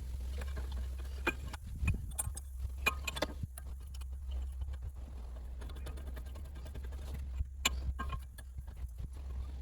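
Scattered light clicks and knocks, irregular and a few per second at most, over a steady low hum.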